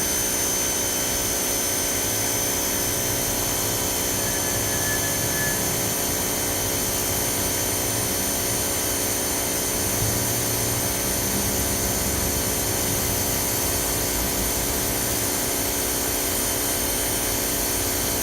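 A 2600 PSI electric pressure washer running steadily, its motor and pump giving a constant whine over the hiss of water spraying from the wand.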